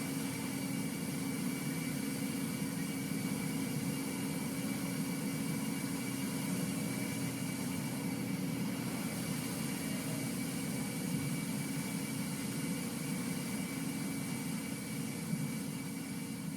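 Exeron Digma HSC 800 five-axis high-speed CNC machining centre running: a steady mechanical hum with several steady tones and a faint high whine.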